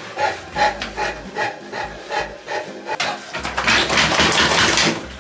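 Towel rubbing a wet Saint Bernard's fur after a bath, in short rhythmic strokes about two or three a second, turning into faster, continuous scrubbing after about three and a half seconds.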